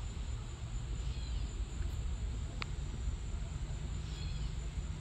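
Outdoor background sound: a steady low rumble with a thin steady high whine over it, two brief bird-like chirps about a second in and near the end, and a single light click in the middle.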